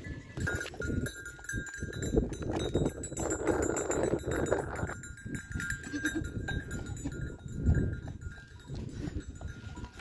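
Bells on a small herd of goats jingling and clinking irregularly as the goats run. A goat bleats about three seconds in.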